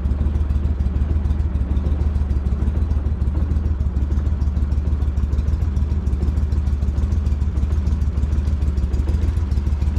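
Boat motor running steadily while the boat is underway.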